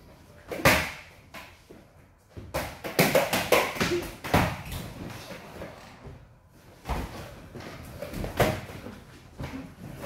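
Taekkyon sparring: gloved strikes and kicks landing on padding and bodies, and feet stepping and stamping on a wooden floor, as sharp thuds at irregular intervals, with a quick flurry of hits around three to four seconds in.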